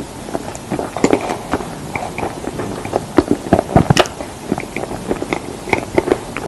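Close-miked eating sounds: irregular chewing and crunching clicks, several a second, with the loudest crunches a little past the middle.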